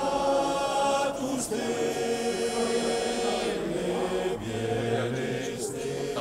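Background music: a choir chanting slow, long-held notes, with a lower voice coming in about two-thirds of the way through.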